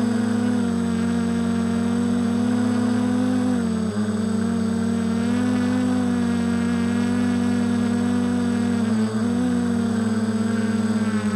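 Small multirotor drone's electric motors and propellers humming steadily, heard from its own onboard camera. The pitch sags and recovers slightly a couple of times as the drone adjusts its flight.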